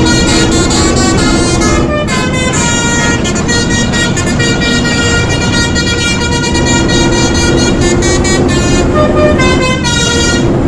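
Telolet basuri multi-tone musical horn playing a melody: quick short notes at first, a longer held passage in the middle, then quick notes again near the end, over a vehicle's steady engine rumble.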